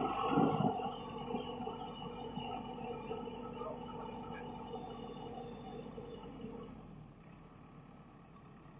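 JCB backhoe loader's diesel engine running, its sound fading steadily over the seconds until the low hum dies out near the end, with a steady high whine above it.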